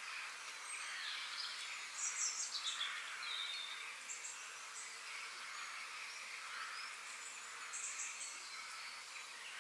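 Outdoor background: short high chirps about two, four and eight seconds in, over a steady hiss.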